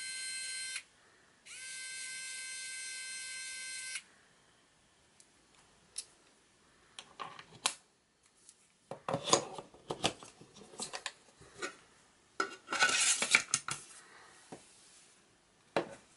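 Xiaomi Mijia electric screwdriver's small motor whining in two short runs, about a second and then about two and a half seconds, pitching up slightly as it spins up each time. Then the clicking and clattering of its steel bits and metal case being handled, with a sharp knock near the end.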